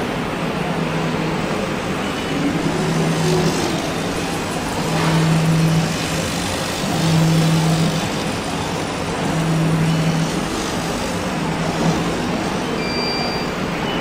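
GN1280 laser cutting machine at work on cloth: a steady rushing noise with a low motor hum that comes and goes in roughly one-second stretches, about five times, as the laser head moves.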